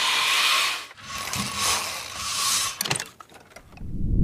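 Venetian blind being drawn up: the slats rustle and hiss while the cord mechanism ratchets, with a few sharp clicks about three seconds in. A low rumble builds near the end.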